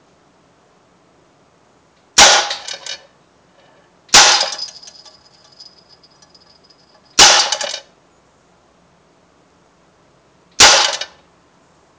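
Crosman AK1 CO2-powered .177 BB rifle firing four single semi-auto shots, each a sharp crack with a brief rattle, spaced two to three seconds apart. The second shot is followed by a high metallic ring lasting about two seconds.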